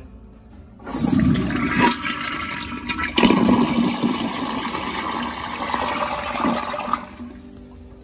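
A 20-inch tall gravity-flush toilet flushing at 1.28 gallons per flush, heard close up from inside the bowl. A rush of water starts about a second in, surges louder around three seconds, and stops sharply about seven seconds in.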